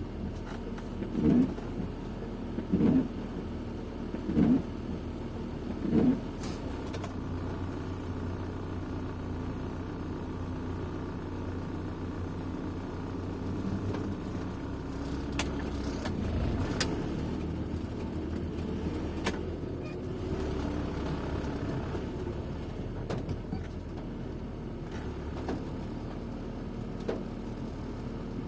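Car cabin noise while driving in rain: steady engine and tyre noise, with a low thump repeating about every second and a half for the first six seconds.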